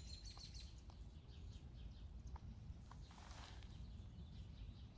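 Near silence: faint outdoor ambience with a steady low wind rumble on the microphone and a few soft rustles of grass and moss under the fingers, one a little louder about three seconds in.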